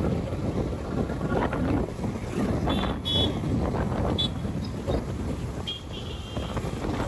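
Wind buffeting the microphone over steady outdoor background rumble, with a few short high-pitched tones about three, four and six seconds in.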